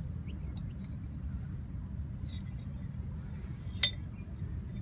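Water-filled plastic jar with a screw lid being handled and turned, giving a few light clicks and one sharper click near the end, over a steady low rumble.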